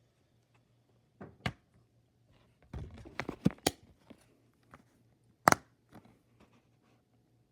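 A few scattered clicks and knocks, like handling noise, over a faint low hum; the loudest knock comes about five and a half seconds in.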